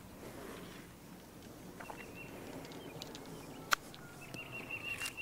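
Golf club striking the ball on a chip shot: one sharp click about three and a half seconds in. A high, even trill sounds twice in the background.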